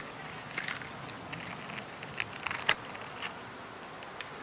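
Close-up faint, irregular ticking and crackling of a black wood ant feeding on bun remains in a paper bag, small scattered clicks of paper over a steady hiss, with one sharper click a little past halfway.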